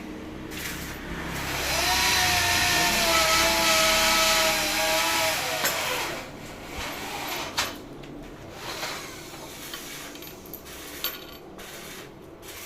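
Electric machine motor spinning up with a whine, running steadily for about four seconds, then winding down, followed by scattered clicks and knocks.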